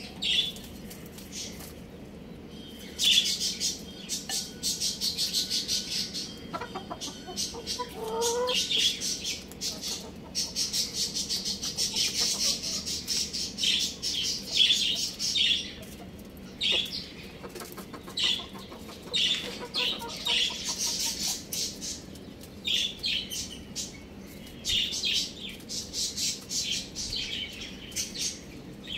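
Young chickens peeping and chirping in rapid high-pitched bursts that come and go, with one short lower call rising in pitch about eight seconds in.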